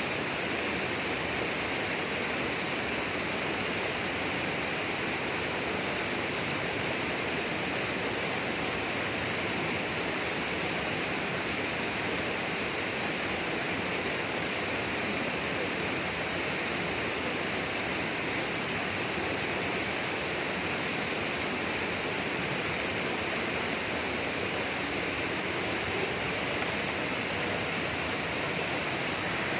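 Flowing water rushing steadily and evenly, without a break.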